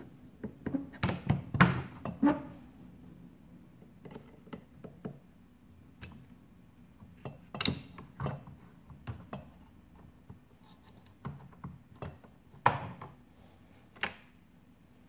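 Hard plastic and metal parts of an espresso machine clicking and knocking as they are handled with pliers during disassembly. A quick cluster of knocks comes in the first couple of seconds, then single sharp clicks every second or two.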